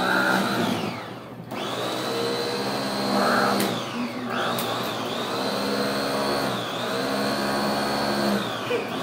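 Electric food processor (bowl chopper) motor running in pulses as its top button is pressed and released, chopping butter with herbs and garlic. Each run spins up to a steady whine and winds down with falling pitch: full stops about one second in and four seconds in, a brief dip near seven seconds, and a wind-down near the end.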